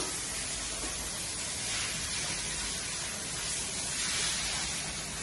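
Hot spring water running into a stone bath: a steady splashing hiss with no break.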